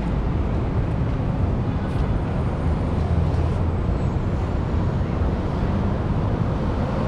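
Steady low rumble of wind buffeting the microphone, with city street traffic noise behind it.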